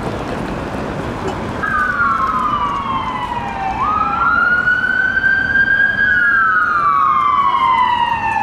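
Emergency-vehicle siren on a Danish emergency-doctor car (VW Touareg) running with blue lights. From about one and a half seconds in it gives a slow wail over city traffic noise: the pitch falls, jumps sharply back up, climbs slowly, then falls again.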